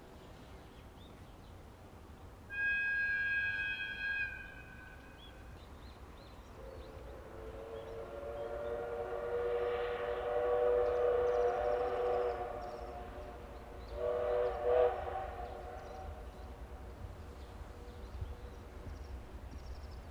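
Two locomotives sounding whistles in answer to each other: a short, high-pitched horn blast from the EF65 electric locomotive about two and a half seconds in, then the D51 steam locomotive's lower, chime-like steam whistle swelling up into one long blast and a shorter second blast about fourteen seconds in.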